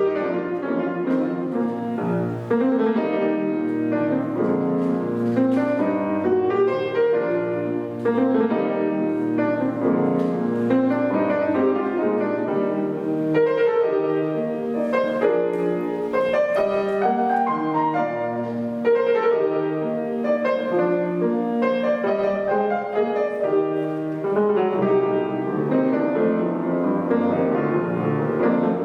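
Solo acoustic piano playing a classical piece: a steady, unbroken flow of notes in both hands.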